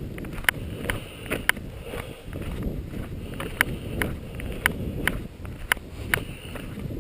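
Footsteps crunching along a frozen dirt road, with sharp clicks about once or twice a second.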